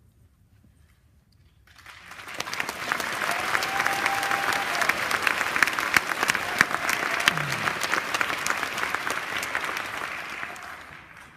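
An audience clapping. It starts about two seconds in, after a short hush, holds steady, then dies away near the end.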